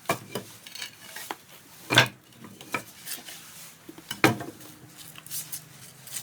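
Dry sticks of firewood clacking and knocking against each other and the firebox as they are laid into a wood-fired boiler's firebox, about half a dozen sharp knocks, the loudest about two seconds in and again after four seconds.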